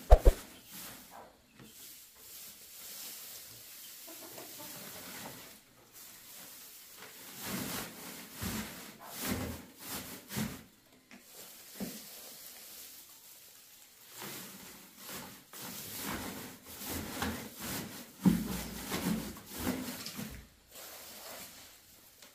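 Dry straw and hay rustling and crackling in a cardboard box as a hand pushes and arranges it, in irregular bursts, with a sharp knock just after the start.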